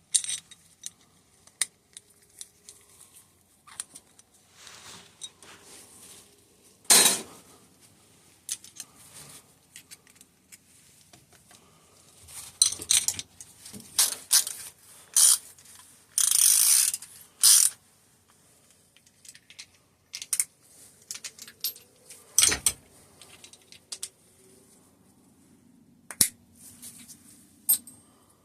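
Small metal tools and brake caliper parts clicking, tapping and scraping on a workbench as the seals are picked out of a hydraulic disc brake caliper with a seal tool. The clicks are irregular, with a couple of louder knocks and a longer scrape past the middle.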